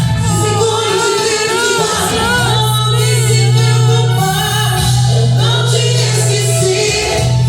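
Contemporary Christian worship song: a woman's voice sings a line that glides and wavers in pitch over a band accompaniment held up by a sustained bass.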